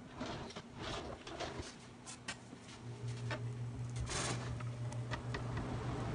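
Kitchen handling sounds: scattered light taps, clicks and short scrapes as a chef's knife and raw chicken breast are picked up and handled on a wooden cutting board, with a brief scrape about four seconds in. A steady low hum comes in about three seconds in and stays as the loudest sound.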